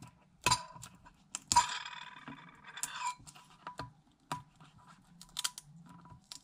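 Hands handling a metal Pokémon TCG Ultra Ball tin to open it: irregular clicks and taps of the thin metal shell, with a brief scraping rustle about a second and a half in.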